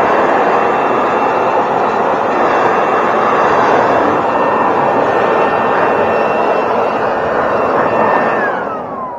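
An electric power tool's motor running at steady speed, a loud rushing noise with a steady whine. About eight seconds in it is switched off, and the whine falls in pitch as the motor spins down.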